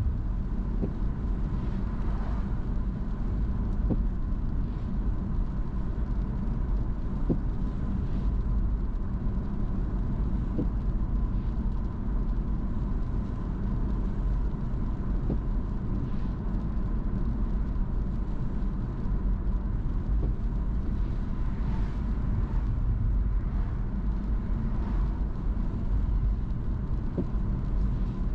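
Car driving along a road: a steady low rumble of engine and tyres, with a faint steady tone running through it.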